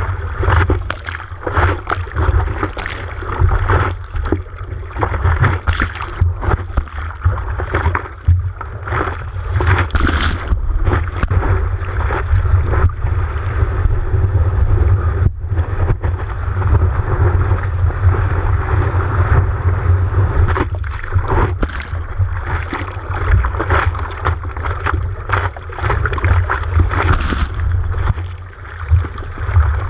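Seawater churning and splashing over a camera on the nose of a longboard as the surfer paddles through broken waves: a constant rush of water with a heavy low rumble, broken by frequent splashes.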